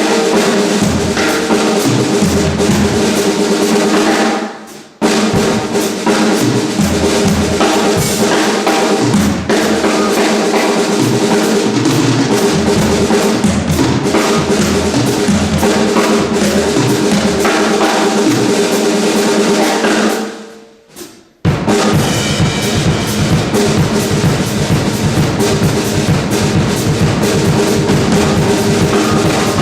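Live funk trio of electric guitar, electric bass and drum kit playing a groove, with the drums prominent. The band cuts out briefly twice, about four seconds in and again about twenty seconds in.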